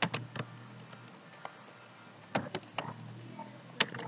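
Computer keyboard keys clicking as someone types, about eight separate keystrokes at an uneven pace with short pauses between them.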